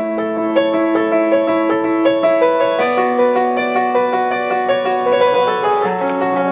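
Background music: a piano melody of quickly struck notes over held low notes, which change about halfway through and again near the end.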